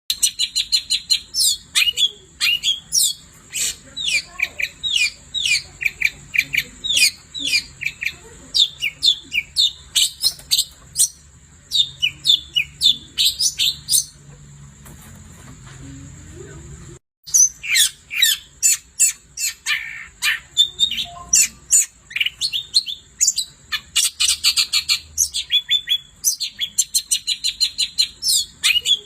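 Long-tailed shrike (cendet) singing a long, rapid chattering song of sharp, quickly descending chirps, several a second, over a steady high-pitched whine. The song breaks off for about three seconds mid-way and then starts again after a brief cutout.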